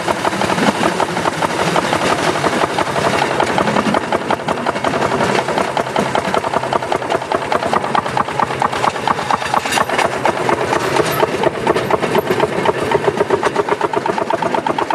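Railway section car (speeder) engine running steadily with a rapid, even beat as the car travels along the narrow-gauge line.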